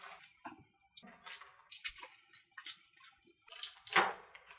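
Scissors snipping through a plastic bag, then the paint-smeared plastic crackling as it is peeled off a wet painted canvas board, in irregular short crinkles with a louder one about four seconds in.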